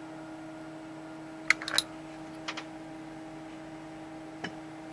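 Steady electrical hum with a few sharp clicks over it: a quick cluster of four or five about a second and a half in, two more a second later, and a single one near the end.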